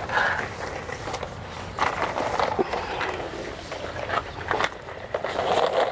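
Rustling and scraping, with scattered light knocks, as plastic drip-irrigation tubing is handled and pulled into place.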